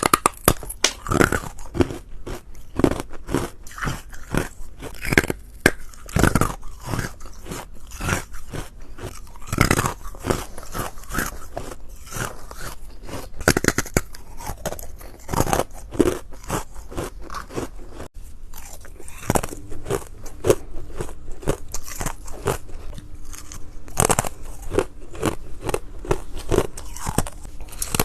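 Ice being bitten and crunched between the teeth, a quick run of sharp crunches several times a second with a brief pause about two-thirds of the way in.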